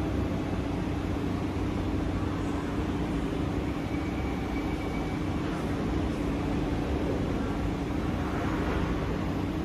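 SMRT Kawasaki C151B metro train standing at a platform: a steady hum of onboard equipment with a constant low tone, and no motion sounds.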